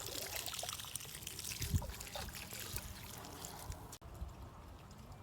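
Water trickling and splashing, a dense hiss of small splashes that cuts off abruptly about four seconds in.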